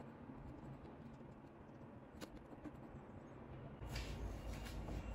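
Faint soft scraping and a few light clicks as a table knife spreads thick egg-yolk cream over the top of a glass dessert cup.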